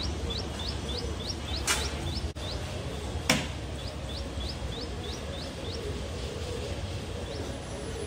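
Small bird chirping in two quick runs of short rising chirps, about four a second, then only once or twice more, over a steady low rumble. A sharp click stands out about three seconds in.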